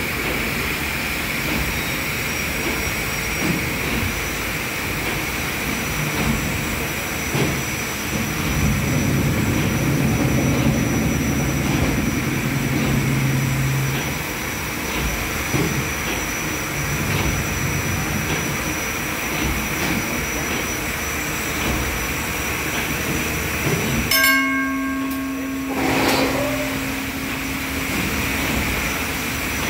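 PS Waverley's three-cylinder triple-expansion steam engine running steadily, its cranks and rods turning the paddle shaft with a dense, even mechanical din, a faint regular beat and a high steady whine over it. Near the end the sound breaks off briefly and a steady low tone is heard for a couple of seconds.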